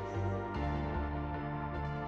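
Background music: ambient, new-age style, with a steady pulsing bass line.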